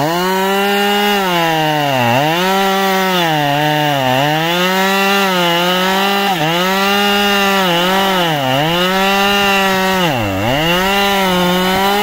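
Chainsaw cutting through the base of a thick tree trunk at high revs, its engine note dipping and recovering every second or two as the chain bites into the wood.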